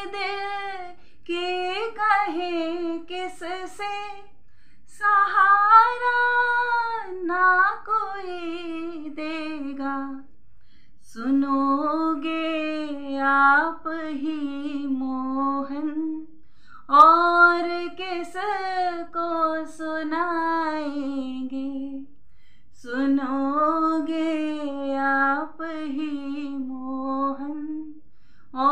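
A woman singing a Hindi Krishna bhajan solo with no instrument heard. She sings in long, sliding phrases, with short pauses for breath about every five to six seconds.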